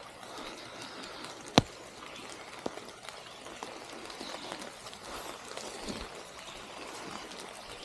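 Steady rain falling and dripping on leaves, with scattered drops ticking close by; one sharp loud click about a second and a half in and a smaller one about a second later.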